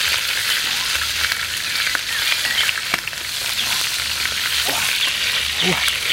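Pork pieces frying in hot oil in a metal pan, a steady sizzle.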